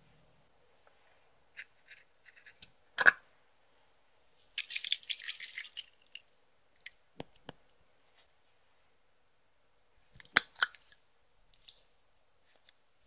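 Scattered sharp clicks and taps with a rattle of about a second and a half in the middle, from small makeup and glitter containers being handled. The loudest tap comes about three seconds in, and a double tap comes near the end.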